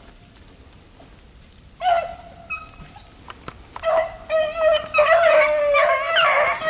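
Beagles baying on a rabbit hunt. A single bay comes about two seconds in, then from about four seconds on several hounds open up and bay together almost without a break, as a pack does when running a rabbit's track.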